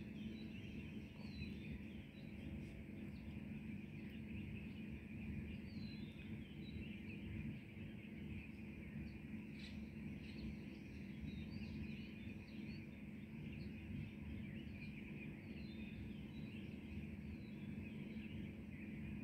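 Birds chirping faintly, short high chirps scattered throughout, over a continuous low outdoor rumble.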